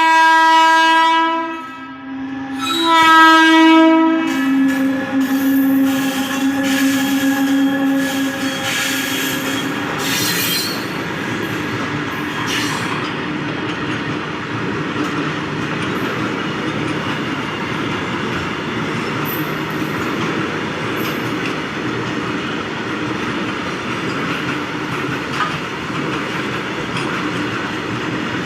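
Horn of a WAG-12 electric freight locomotive sounding two long blasts, the second about three seconds in. The train then runs past with a steady rumble of wheels on the rails.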